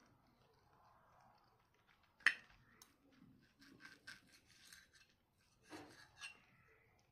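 Cutlery on a plate: a sharp clink about two seconds in, then a run of short scrapes, and two more knocks near the end.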